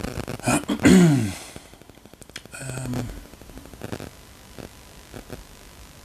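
A man's wordless vocal sound falling in pitch about a second in, like a drawn-out sigh, then a short low hum near the middle. Faint taps follow as he types on a phone touchscreen.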